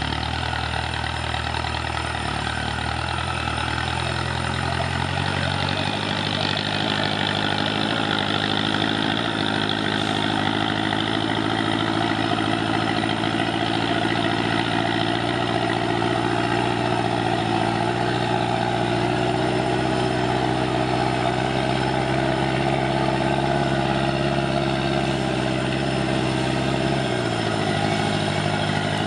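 An off-road vehicle's engine running steadily, its note shifting about five seconds in and again near the end.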